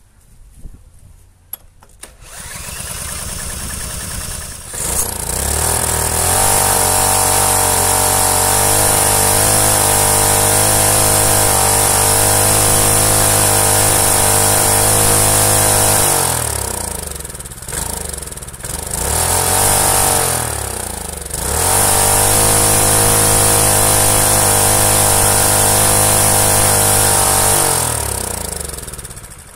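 Predator small single-cylinder overhead-valve engine, running with no head gasket and so on raised compression, being started with a cordless drill spinning the flywheel nut. It catches about five seconds in and runs steadily at speed for about ten seconds, then slows and stumbles, picks back up, and runs down near the end.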